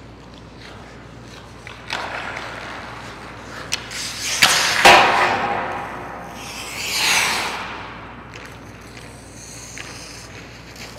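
Ice hockey skate blades striding and scraping on the ice, with sharp clicks and knocks of a stick and puck, the loudest about four to five seconds in, and a long hissing scrape of blades about seven seconds in.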